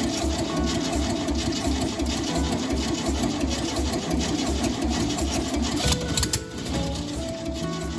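Starter motor cranking the 1971 VW Kombi's air-cooled flat-four engine in a steady, even rhythm, an attempt to get it to fire. Background music plays over it.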